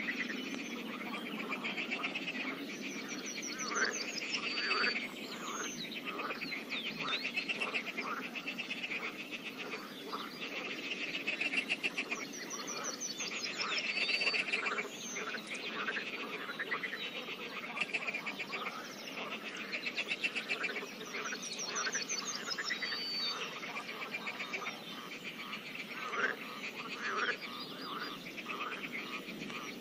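A pond chorus of many frogs calling at once, overlapping pulsed croaks that never let up. Higher, faster trills rise above the chorus every several seconds.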